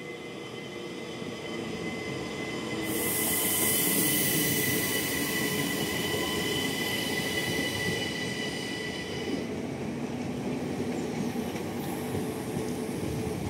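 Siemens Desiro ML electric multiple unit (SNCB AM08) running slowly into the station past the platform, rumbling on the rails with a steady high whine. A hiss comes in about three seconds in, and the whine and hiss stop about nine and a half seconds in as it brakes.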